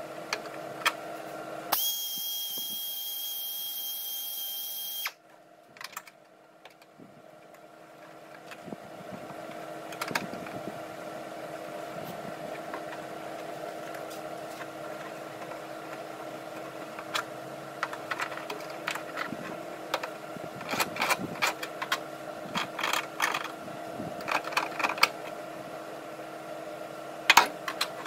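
A power tool runs steadily for about three seconds and cuts off suddenly, during sheet-metal bodywork on a car's trunk panel. After that there is a steady workshop hum, with scattered light taps and clicks of metal work that grow more frequent toward the end. One sharp knock near the end is the loudest sound.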